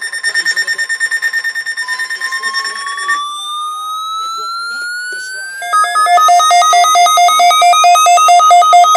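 Weather alert radios sounding their alarms for the required weekly test. A fast-pulsing beep cuts off about three seconds in, while a slowly rising electronic tone begins about two seconds in. Near six seconds a louder two-tone beep starts pulsing about three times a second.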